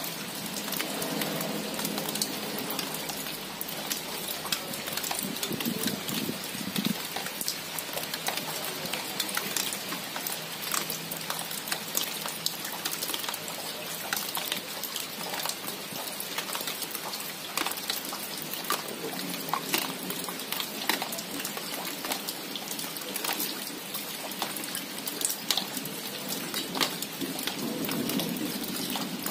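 Steady rain at night, with many close, sharp drop taps pattering on the shrub's leaves. A low rumble swells up a few times under the rain.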